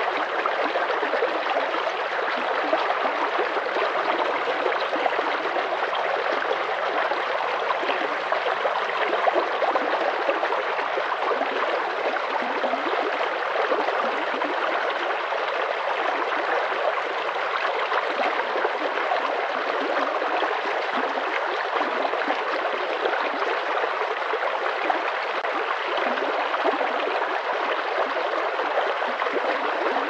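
Shallow stream running over rocks, a steady rush and splash of water.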